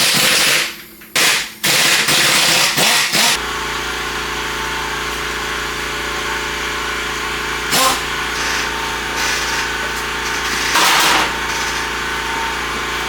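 Pneumatic impact wrench hammering in several short bursts, loosening fasteners on the Jeep. After about three seconds the air compressor's motor starts and runs with a steady hum, with two brief bursts of noise over it later on.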